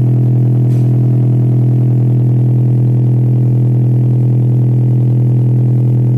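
A 200-watt subwoofer on a sound-wave fire-extinguisher robot playing one loud, steady, buzzy low tone, aimed at a flame to put it out.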